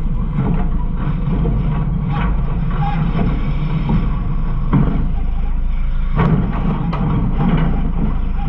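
Garbage truck running with a steady low rumble, heard from inside its rear hopper, with a few sharp knocks in the second half.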